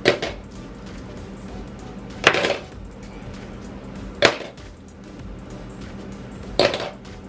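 Steel bolts dropped one at a time into a plastic mixing cup, clinking against the bolts already inside: four drops about two seconds apart.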